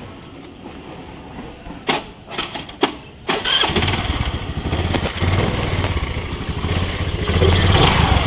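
Honda Grazia 125 scooter's single-cylinder engine being started: a few clicks, then it catches about three seconds in and idles, getting a little louder near the end. It runs without the abnormal clutch-side noise, which the mechanic says is cured.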